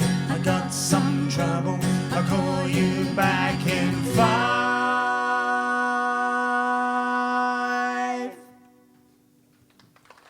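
Closing bars of a country song with acoustic guitar: strumming, then a final chord held for about four seconds that cuts off suddenly about eight seconds in, leaving near silence.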